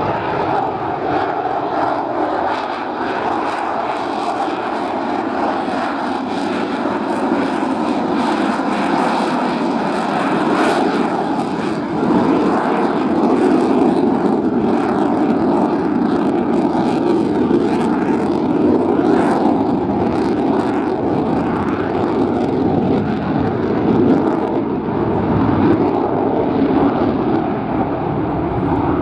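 Jet noise from a Lockheed Martin F-35B Lightning's single Pratt & Whitney F135 turbofan in flight: a steady, loud, deep rushing rumble that grows louder about twelve seconds in, with a few sharp crackles.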